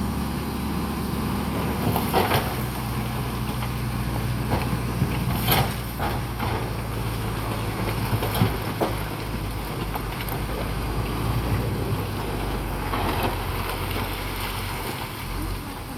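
Bulldozer's diesel engine running steadily under load, its low pitch shifting now and then, with scattered sharp knocks and clanks, the loudest about five and a half seconds in.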